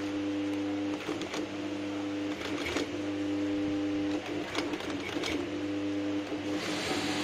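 Industrial single-needle walking-foot sewing machine with a large bell hook stitching through sofa leather at a long 12 mm stitch. Its motor hum and needle clatter break off briefly a few times as the machine is stopped and restarted.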